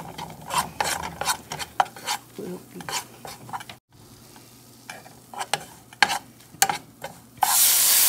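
Metal spoon scraping and stirring gram flour roasting in ghee in a nonstick saucepan, in short repeated strokes. Near the end, milk poured into the hot pan sets off a sudden loud sizzle.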